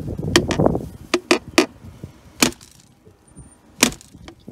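Black plastic rim of a glass aquarium being pried and broken off with tongue-and-groove pliers. A crunching scrape comes first, then a run of sharp cracks and snaps, about seven of them.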